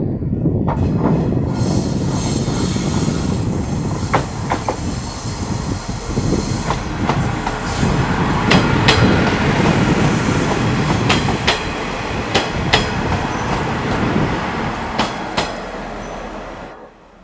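Kaze-kko's KiHa 48 diesel railcars running slowly into the station: a steady engine and running rumble, with wheel clacks over the rail joints. A high thin squeal comes about four seconds in and again around ten seconds in, and the sound cuts off abruptly just before the end.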